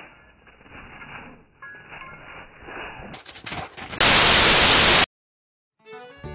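Loud burst of static-like white noise lasting about a second and cutting off sharply, after a few seconds of faint, muffled room sounds with a few clicks. Stringed-instrument music starts near the end.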